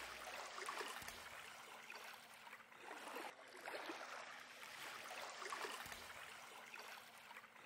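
Small fjord ripples lapping and trickling over a pebble shore, faint and uneven.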